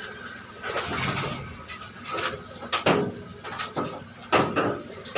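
Hand-held shower sprayer running as a bulldog is rinsed in a stainless-steel grooming tub, with several irregular louder splashes over a steady background hum.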